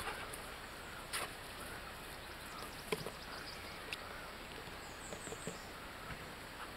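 Quiet open-air background with a few soft clicks, and about five seconds in a quick run of four faint, high chirps from a small bird.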